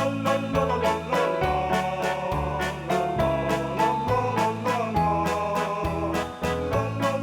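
Background music: an upbeat keyboard or organ tune with a steady beat.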